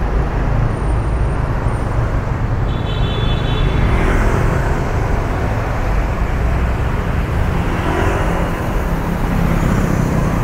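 Steady city traffic and road noise with a deep rumble, heard from a vehicle on the move. A rising whine begins near the end.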